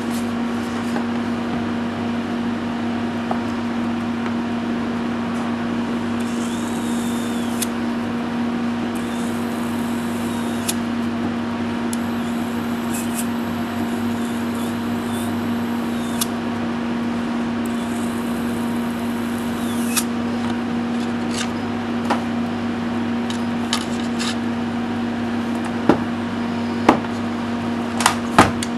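Steady hum throughout, with patches of high fizzing hiss and a few sharp crackles near the end, as a powered carbon fibre brush electropolishes a stainless steel weld seam. The crackles are tiny hydrogen bubbles popping at the brush, which shows the electrolyte is still strong.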